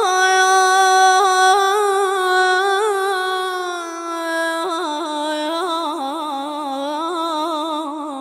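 A young boy singing unaccompanied: one long held note of an Arabic religious chant, wavering in ornaments. The pitch steps down about halfway through and the ornaments grow busier toward the end.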